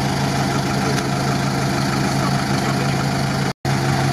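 GAZ-63 truck's engine idling steadily in the mud, with a momentary cut-out about three and a half seconds in.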